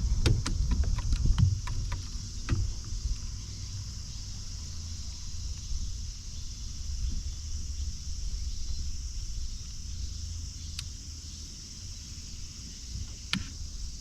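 Outdoor ambience on a lake: a low wind rumble on the microphone under a steady high hiss. A run of small clicks and knocks comes in the first couple of seconds, and one sharp click near the end.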